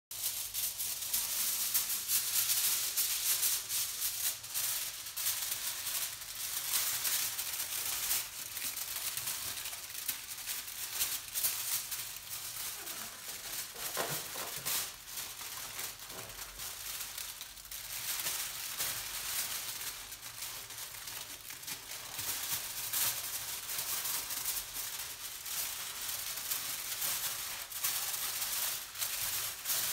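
Aluminium foil crinkling and crackling continuously as hands crumple and press a large sheet into shape.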